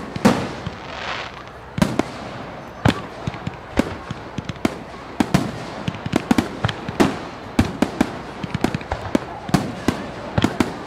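Fireworks going off: a rapid, irregular run of sharp bangs and pops, some ringing on briefly, with a short hiss about a second in.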